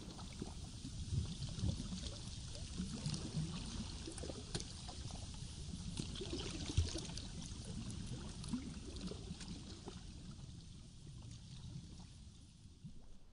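Small waves lapping at a lake's edge: a soft, uneven splashing and trickling over a steady hiss, easing off near the end.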